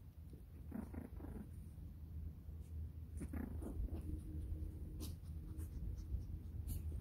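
Pomeranian puppies making short, soft vocal sounds, twice: a brief cluster about a second in and another about three seconds in.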